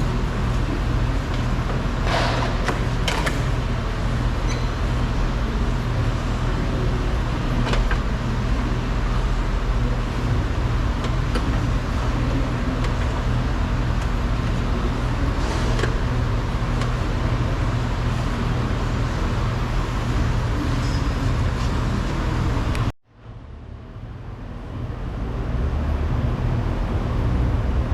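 Steady low rumble of a running vehicle with a broad background hiss, with a few light clicks. The sound drops out suddenly about five seconds before the end, then fades back in.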